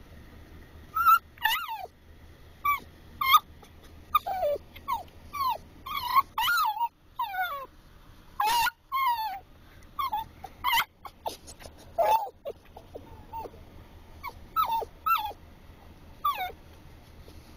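Dachshund whining and whimpering in a rapid string of short, high, falling cries, impatient for a food treat.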